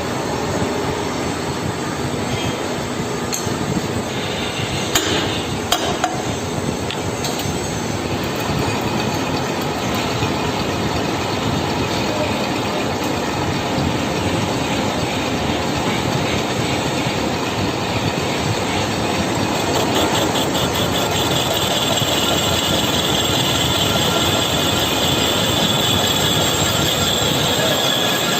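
Metal lathe running and cutting a metal part, a steady dense machining noise with a few sharp clicks early on. About two-thirds of the way through, a high-pitched squeal from the cutting builds in.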